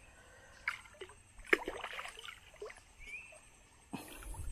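Hooked machaca thrashing at the water's surface beside the boat: a few short, sudden splashes, the sharpest about one and a half seconds in and another near the end.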